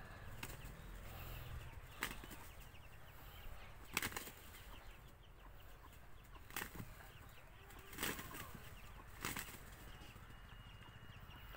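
Two fighting roosters clashing, with about five short bursts of wing flapping a second or two apart.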